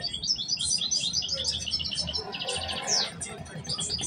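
Caged songbird singing a fast, twittering song of quick high notes, with a buzzy trill about two and a half seconds in and a sweeping note just after it.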